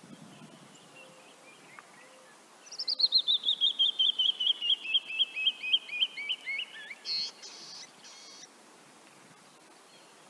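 Canyon wren singing its song: a long cascade of clear whistled notes falling steadily in pitch and slowing toward the end, followed by a few short harsh notes.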